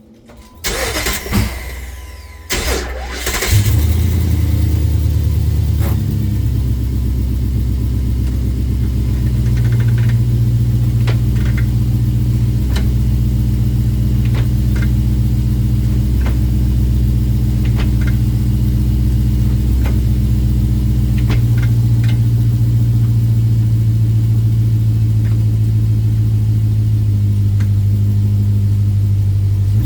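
Car engine started about three seconds in, then idling steadily, with scattered sharp clicks or ticks heard over the idle.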